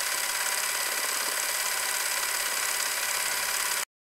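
Steady whirring noise of a small motor, cutting off abruptly near the end.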